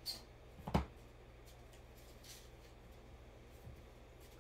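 Hands handling a trading-card box: a small click at the start and a louder knock just under a second in, then faint scraping ticks over a low steady hum.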